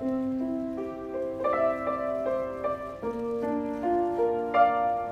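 Slow solo piano music: single notes picked out over held low notes that change about every three seconds.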